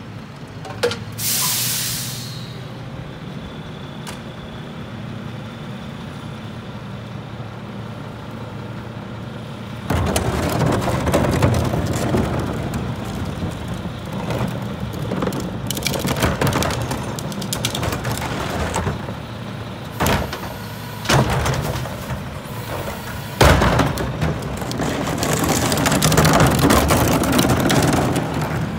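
Mack LR garbage truck with a McNeilus rear-loader body: a short air-brake hiss about a second in, then the engine idling steadily. About ten seconds in the engine gets much louder as the truck pulls away and drives closer, with a few sharp clunks, the loudest about two-thirds of the way through.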